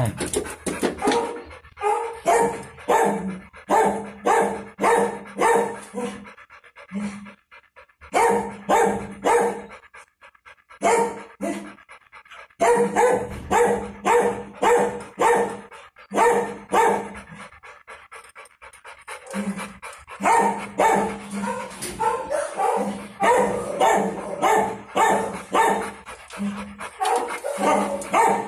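Large dog panting hard, about two breaths a second, with a few short pauses.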